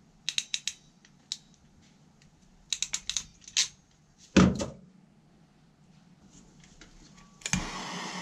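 Ratcheting wire crimper clicking in quick clusters as a connector is crimped onto a wire, with one louder thump about halfway. Near the end a butane torch clicks alight and its flame hisses steadily as it shrinks the heat-shrink connector.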